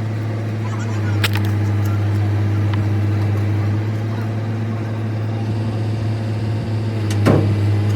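Steady low drone of a running motor or engine, with a sharp knock about a second in and a louder knock near the end.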